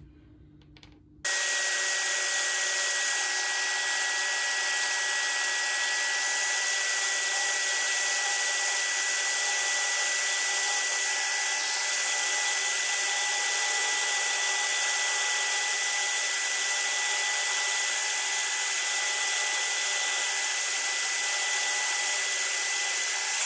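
Electric drill, rigged as a float lathe, switched on and running at a steady speed with a steady whine, while 80 grit sandpaper sands the spinning float body. It switches off near the end, the whine falling as it runs down.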